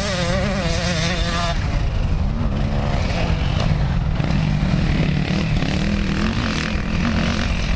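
Motocross dirt bike engines running hard, the pitch rising and falling with the throttle. A higher wavering engine note fades out about a second and a half in, leaving a lower engine note that keeps swinging up and down.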